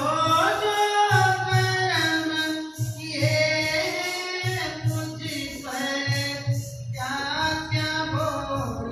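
A woman singing a Hindi devotional bhajan in a high voice, in long held phrases, over music with a steady low beat.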